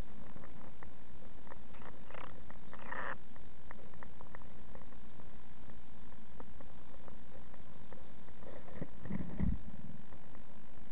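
Inside a great tit nest box: many faint, high peeps from the nestlings over a steady hiss. Scratching and rustling of the adult great tit at the entrance hole about two and three seconds in, and a louder low scuffle near the end as it leaves the hole.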